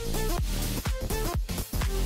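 Background electronic dance music with a steady kick-drum beat and a short repeating melodic line.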